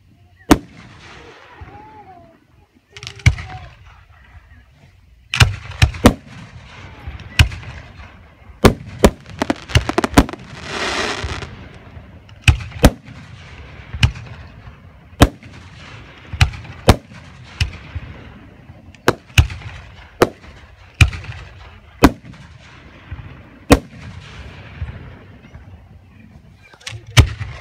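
Aerial firework shells bursting in an uneven series of sharp booms, often about a second apart and sometimes in quick pairs, with a second-long hiss about eleven seconds in.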